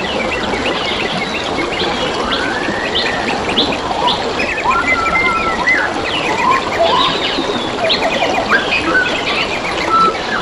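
Several wild birds calling and singing together, a mix of short whistles, rapid trills and chirps, over a steady rush of flowing water.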